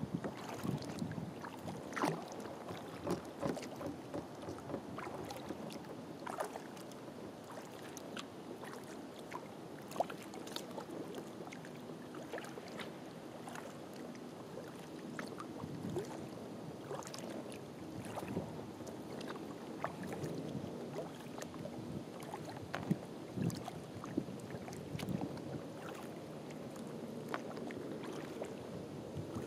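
Kayak paddling on calm water: the paddle dips and pulls, with irregular small splashes and drips and water lapping at the hull.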